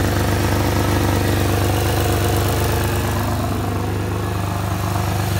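2002 Pontiac engine idling steadily with a rapid clacking that sounds almost like a diesel; the owner suspects a piston rod.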